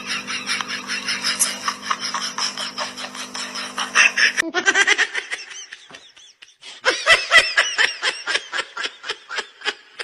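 People laughing in quick rhythmic bursts, in two separate clips with a cut about four and a half seconds in.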